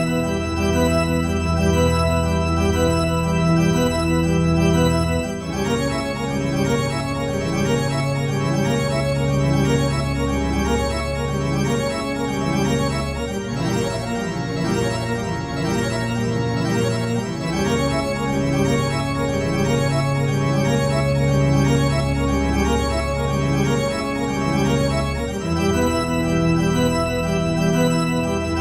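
Organ music accompanying the picture: slow, held chords that change every few seconds.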